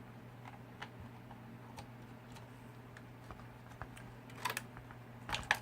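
Small plastic clicks and taps from handling the opened transmitter's case, wiring and switch connectors: scattered light clicks, then two clusters of louder clicks near the end, over a low steady hum.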